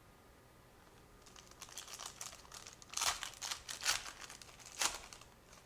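Trading-card pack wrapper crinkling as it is torn open and handled, in a run of crackles that starts about a second in and peaks three times, the last near the end.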